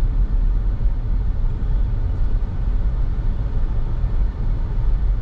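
Steady low rumbling noise with a faint hiss above it, unbroken and without distinct events.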